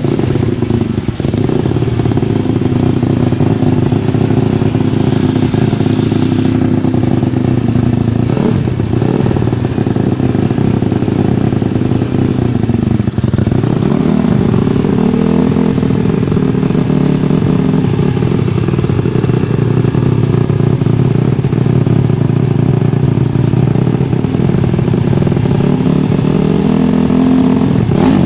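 Freshly rebuilt Yamaha Vega ZR four-stroke engine, bored up to about 160 cc, running just after start-up through a prototype silent-type aftermarket exhaust. It is mostly idling, with a couple of brief revs.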